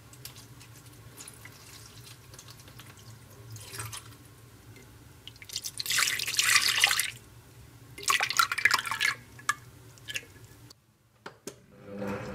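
Liquid poured into a bowl in two splashy pours, about six and eight seconds in, with faint drips and small clicks between and after them.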